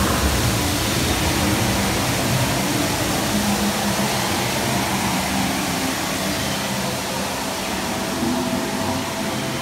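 Steady rushing noise inside a theme-park dark ride, from the ride vehicle and its machinery, with faint held notes of the ride's music coming in after about six seconds.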